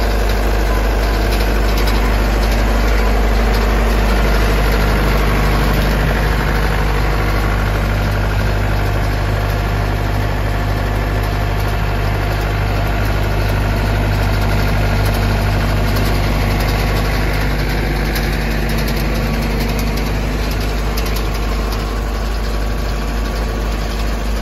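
Heavy equipment engine running steadily at a constant speed, driving a hydraulic conveyor that carries soil up into a dump trailer.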